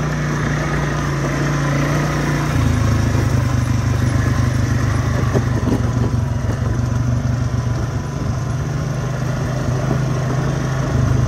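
Quad bike engine running steadily at low riding speed, a little louder from about two and a half seconds in.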